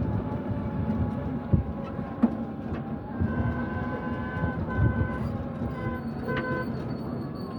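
Steady rumble of a passing vehicle, with a high steady tone sounding in short and long pieces from about three seconds in, like a horn or toot.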